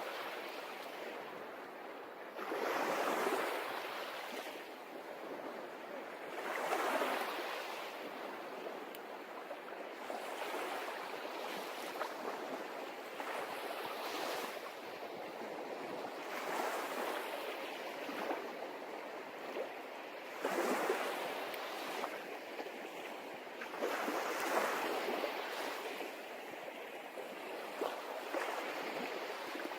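Sea waves breaking and washing ashore, each wave a swelling rush of surf that rises and fades every three to four seconds.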